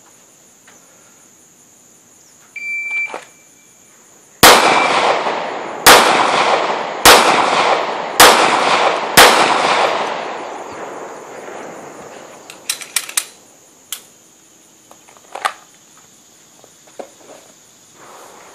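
Five handgun shots fired in an even, deliberate cadence, roughly one to one and a half seconds apart, each followed by a long echo. This is the steady pace of a basic rhythm drill.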